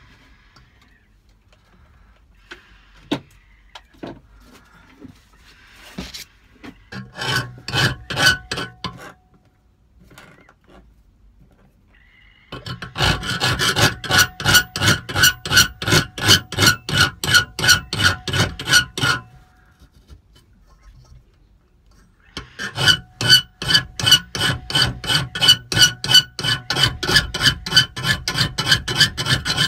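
Hand file stroked rapidly back and forth across a clamped metal tube, about four strokes a second, with the tube ringing on each stroke. A short run of strokes, then two long runs with a pause between them.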